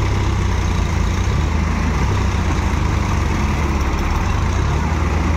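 Diesel tractor engines, a Swaraj 960 and a Massey Ferguson 7250, running steadily with a heavy low engine note.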